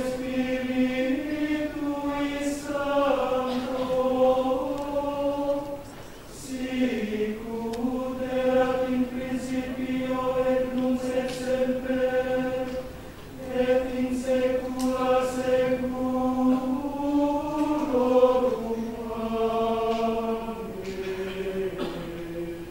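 Adult men's choir singing Gregorian chant in unison: long held notes moving in small steps, with short breath breaks about six and thirteen seconds in, and a falling closing phrase that fades near the end.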